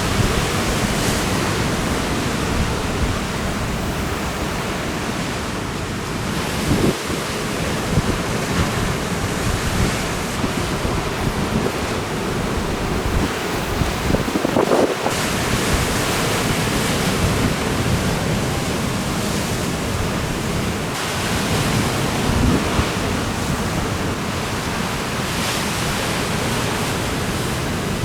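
Strong trade wind buffeting the microphone in gusts over the steady rush of breaking ocean surf.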